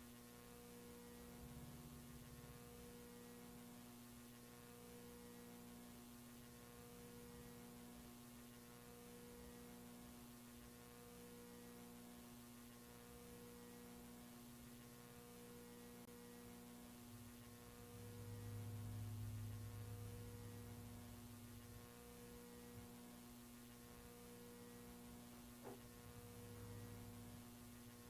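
Near silence with a faint electrical hum: a steady low tone, with higher tones that pulse on and off about every two seconds, and the low hum swelling for a few seconds just past the middle.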